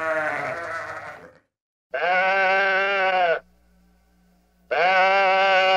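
Sheep bleating three times, each bleat about a second and a half long with short pauses between.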